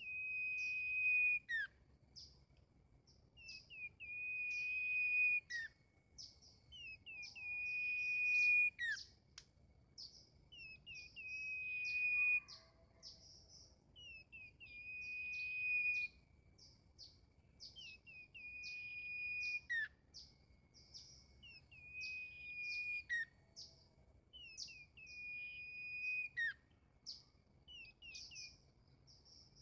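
Caged merbah lilin, a bulbul, singing the same song phrase over and over, one every two to three seconds. Each phrase is a few quick rising notes ending in a clear held whistle.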